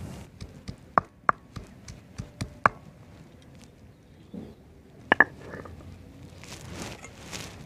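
Handheld grinding stone worked on a board: sharp clicks and knocks, two loud strikes about five seconds in, then a rough scraping as the stone is rubbed across the board near the end.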